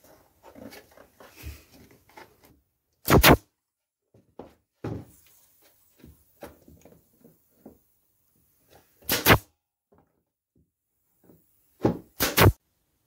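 Nail gun firing into plywood: four sharp cracks, one about three seconds in, one about nine seconds in, and two close together near the end. Light knocks and clicks of the wooden pieces being handled between shots.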